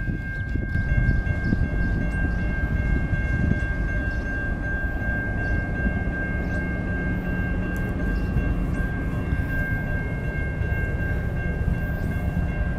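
Railroad grade-crossing warning bell ringing in a steady, unbroken high tone while the gates are down. Underneath it is the low rumble of an approaching train, louder from about a second in.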